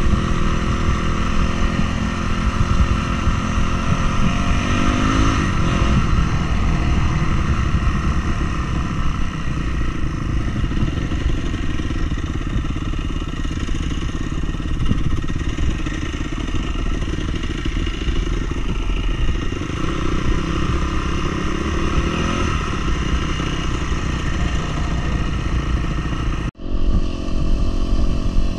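Off-road vehicle engine pulling hard up a steep mountain track, its revs rising about four seconds in and again near the end, over steady road noise. The sound cuts out suddenly for a moment shortly before the end.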